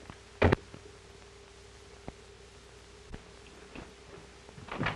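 A sharp double thud about half a second in, then a few faint scattered clicks, over a faint steady hum on the old film soundtrack.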